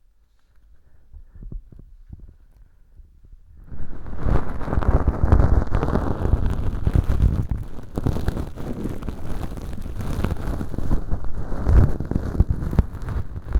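Bonten (feather-tipped ear pick) brushing inside a microphone's ear canal packed with fake dry earwax, heard as a close, scratchy rustle heavy in the low end. A few light brushes come first, then continuous brushing from about four seconds in.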